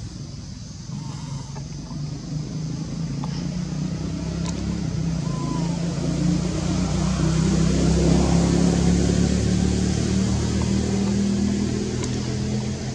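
Motor vehicle engine running nearby, a steady low drone that grows louder to a peak about eight seconds in and then eases off a little.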